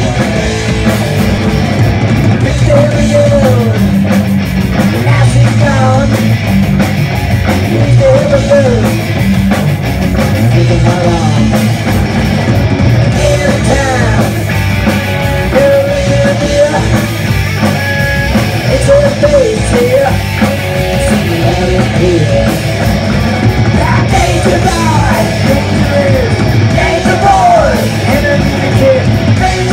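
Punk rock band playing live and loud: electric guitars, bass guitar and drum kit.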